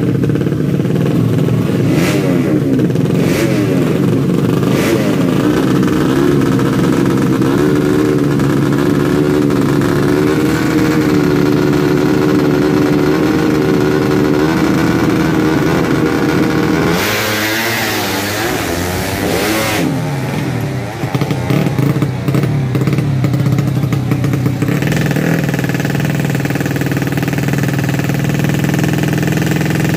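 Tuned 130cc four-stroke underbone drag-race motorcycle engines running at high revs, the pitch wavering up and down. About halfway through come sharper revving sweeps that rise and fall.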